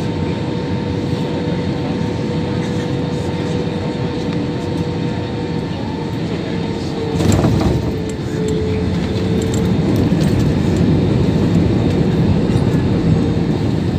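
Airbus airliner cabin noise: a steady jet rumble and hiss with a single engine tone that sinks slowly in pitch. About halfway through a short loud burst of noise breaks in, and after it the low rumble grows louder.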